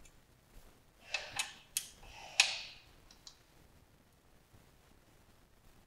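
A hex key clicking and tapping against a steel chain-adjuster bolt in a motorcycle swingarm end as it is turned by hand: four sharp metallic clicks between about one and two and a half seconds in, the last the loudest with a brief ring, and one faint tick after.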